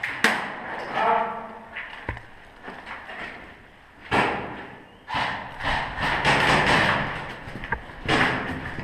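Irregular thuds and knocks, busier and noisier in the second half.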